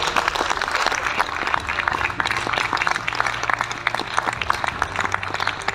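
Audience applause, many hands clapping together, easing off slightly near the end.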